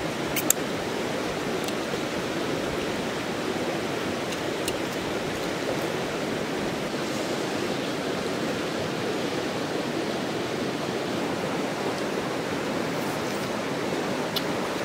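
Steady, even rushing background noise like flowing water, unchanging throughout, with a few faint clicks and one sharp click about half a second in.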